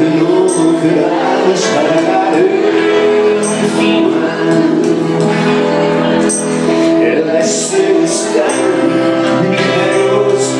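Live band music with a singer, heard from among the audience in a reverberant bar room, with crowd voices mixed in.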